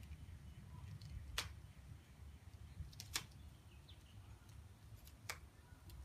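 Duct tape being cut and picked off with a knife: three sharp clicks and snaps about two seconds apart over a low rumble.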